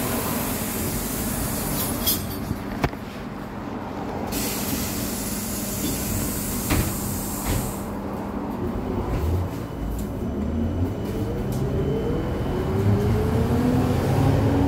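Interior of a VMZ-5298.01 Avangard trolleybus: an air hiss and a couple of knocks while it stands at the stop. From about nine seconds in, the electric traction drive's whine rises steadily in pitch as the trolleybus pulls away.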